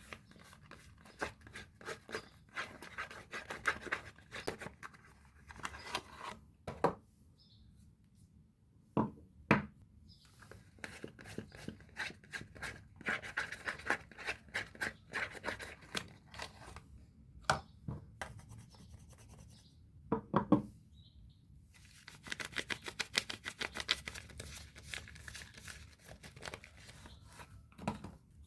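Soap bar wrappers being unwrapped and torn open by hand: bursts of crinkling, rustling and tearing, with a few louder knocks in between.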